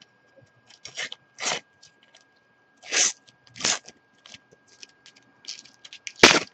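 A paper sticker packet being torn open and handled: a series of short rustling tears and crinkles with small ticks in between, and one louder, sharp rustle near the end.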